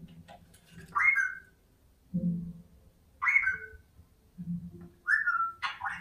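Regent parrot giving short whistled calls, three of them about two seconds apart, each dropping in pitch, with short low hums between them; near the end it starts into its mimicked phrase 'Are you a good boy?'.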